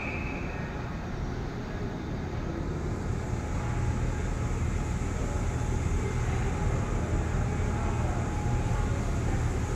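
Steady low rumble and hiss of ice-rink room noise, growing a little louder about three to four seconds in, with a brief high tone in the first second.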